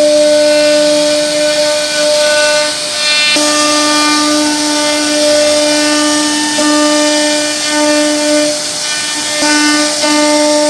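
CNC wood router spindle whining at a steady pitch while it carves wood, with cutting noise underneath. The tone dips and shifts briefly about three seconds in and again near the end as the bit moves through the cut.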